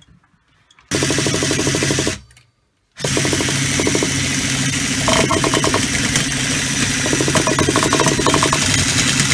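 GO R/C 28R gasoline engine being spun over by an electric starter without catching: a burst of about a second, a short pause, then a long continuous run of cranking. The owner puts the failure down to the ignition, with spark leaking from the lead to the metal chassis.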